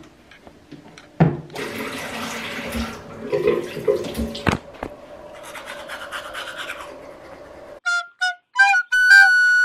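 Bathroom tap running for a second or two over the sink as the toothbrush is wetted, with a thump, knocks and a sharp click of things set down at the basin, then a softer scrubbing of teeth being brushed. Near the end a flute-like music melody comes in.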